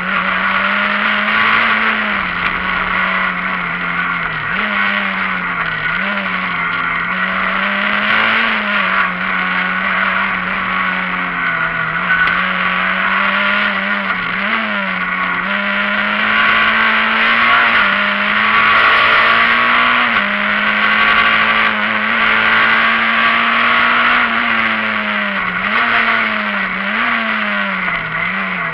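Rally car engine at racing revs, heard from inside the cabin, with tyre and road noise underneath. The revs stay high and drop briefly and climb back several times as the driver works through gears and corners.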